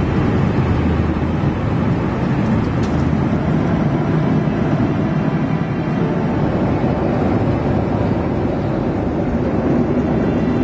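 Steady cabin noise of a Boeing 737-300 in flight: an even rush of engine and airflow noise heard from a passenger seat.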